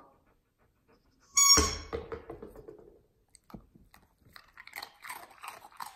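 A squeaky toy ball gives one short, high-pitched squeak with a thump about a second and a half in. From about four and a half seconds in, a border collie crunches a dog biscuit in a quick run of crunches.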